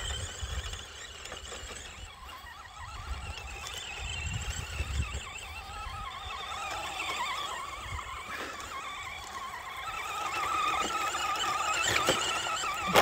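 Electric motor and drivetrain of a Carson Mega Duster 1:10 RC monster truck whining as it drives over sand, the whine rising and falling in pitch with the throttle and growing louder near the end as the truck comes close.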